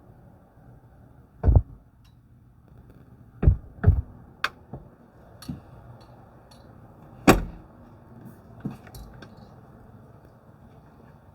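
A few heavy thumps and several lighter clicks and knocks, irregularly spaced: one about a second and a half in, a close pair around four seconds in, and the loudest about seven seconds in.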